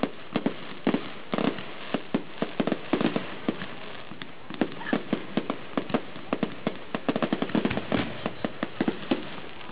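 Display fireworks bursting: many sharp bangs at irregular intervals over a steady crackle, thinning briefly a little before halfway, then coming in a dense, rapid run later on.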